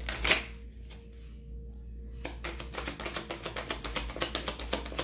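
Tarot cards being shuffled by hand, heard as a dense run of quick crisp clicks starting about two seconds in. Just before, near the start, there is a single sharp knock.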